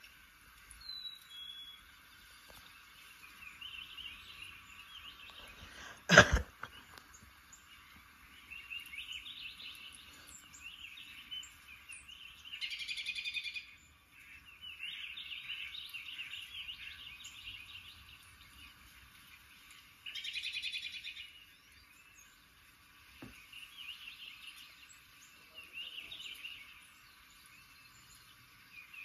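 Songbird chirps and song coming in bouts from a television's speakers playing a bird video. A single loud, sharp knock about six seconds in.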